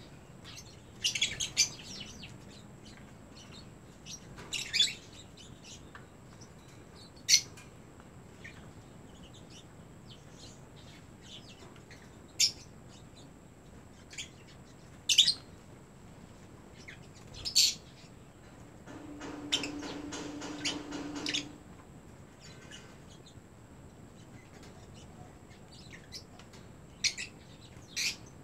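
African lovebirds giving short, sharp, high chirps, about ten scattered with gaps, some in quick pairs. A steady hum lasts about two and a half seconds a little past the middle.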